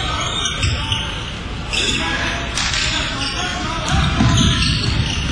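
Game sounds of a basketball game in a gym: a basketball bouncing on the hardwood floor, with voices from the crowd.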